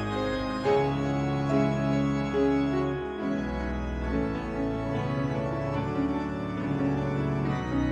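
Pipe organ playing sustained chords under a moving melody, with a grand piano playing along.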